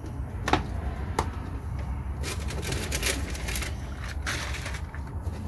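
Two sharp clicks as the metal catches of a small wooden seed box are undone, then the lid opening and packed seed packets rustling.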